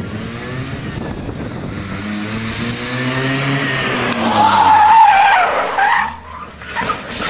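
Small hatchback car's engine running at high revs as it passes, its pitch rising and then falling, followed by a loud, wavering tyre squeal as the car slides through a turn. A short sharp noise comes near the end.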